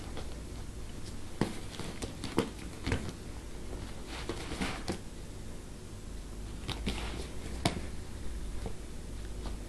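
Irregular rustling, scratching and light taps from a handbag as a Bengal cat paws and bites at it, with the sharpest tap near the end, over a low steady hum.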